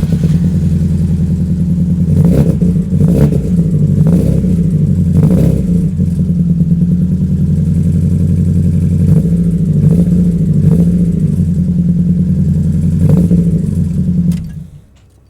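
Mazda MX-5's four-cylinder engine on a start attempt after a misfire repair. It churns steadily for about fourteen seconds with irregular sharp pops roughly once a second, then stops suddenly.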